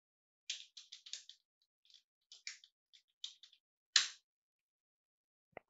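Computer keyboard typing: a run of quick, light keystrokes, then one louder click about four seconds in.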